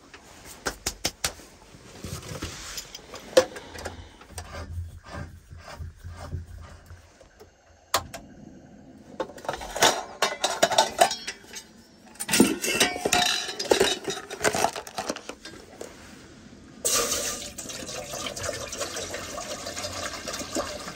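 Stainless steel cooking pot and lid clattering and knocking as they are handled, then water poured into the pot near the end, a steady splashing fill.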